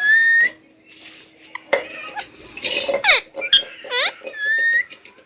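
A parrot giving a series of shrill calls, some held steady and some sweeping up and down in pitch, with a few sharp clicks and knocks between them.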